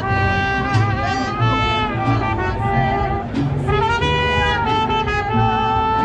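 A mariachi band playing live. Violins and trumpets carry a sustained melody with vibrato over strummed guitars and a moving bass line.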